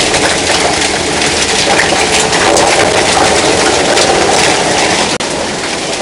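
Plastic film washing line running: the paddles of the washing tank turn through the shredded film. The result is a loud, steady mechanical clatter made of dense rattling, and it drops out for an instant near the end.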